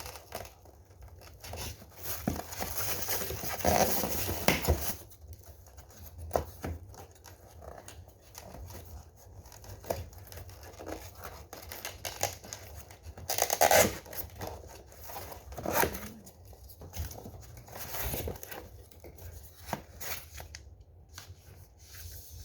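Packaging of a new Nespresso coffee machine being handled and torn open: irregular rustling, crinkling and tearing, loudest for a few seconds near the start, then in shorter bursts, with a few light clicks and knocks.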